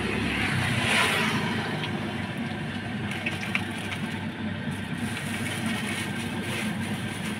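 Steady low mechanical rumble like a running engine, with faint rustling and a few light clicks as fries are tipped into a plastic bag.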